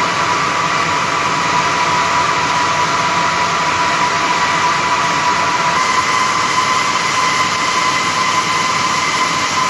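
Circular loom for woven sack fabric running at full speed: a dense, steady mechanical clatter with a constant whine over it.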